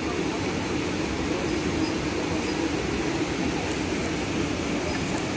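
Steady rush of a mountain stream flowing over rocks, an even noise with no breaks.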